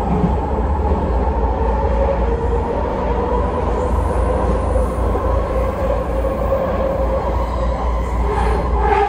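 Steady running noise inside a moving public transit vehicle: a deep rumble with a steady motor hum over it.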